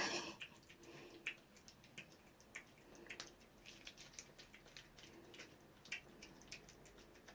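Cat licking and lapping a Churu lickable paste treat: soft, irregular wet smacking clicks of its tongue, with a louder rustle right at the start.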